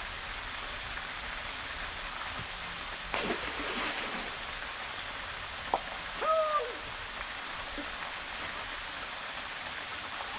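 Waterfall rushing steadily into a pool, with a short louder rush about three seconds in and a brief pitched call a little past halfway.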